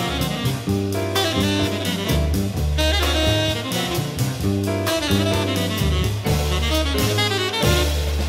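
Jazz combo playing: a saxophone leads over bass notes and a drum kit.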